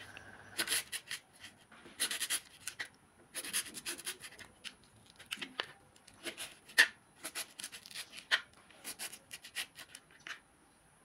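Kitchen knife slicing kweni mango into strips on a plastic cutting board: irregular soft cuts and taps of the blade on the board, with one sharper knock about seven seconds in. The cutting stops shortly before the end.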